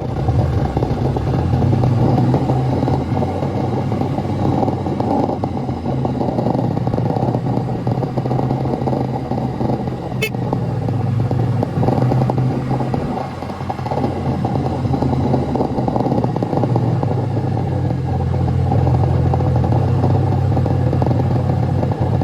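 Motor vehicle engine running at a steady pace while driving, with a constant low hum under rumbling road and wind noise. A single sharp click comes about ten seconds in.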